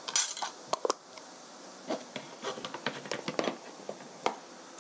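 Small kitchen items being set down and handled on a tabletop: a quick clatter of a spoon and jar at the start, then a scatter of small taps, scrapes and rustles, and one sharp tap near the end.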